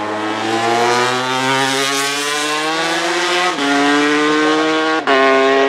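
Racing motorcycle engine accelerating hard out of a bend, its pitch climbing steadily. It shifts up twice, about halfway through and near the end: each time the note drops for a moment before it climbs again.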